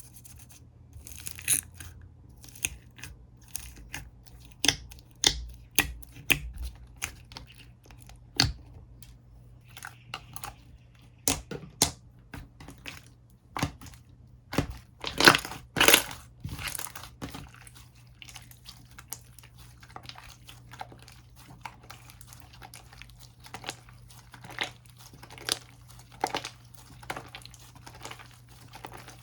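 Slime being squeezed, poked and stretched by hand, giving irregular sticky pops and crackles, loudest about halfway through.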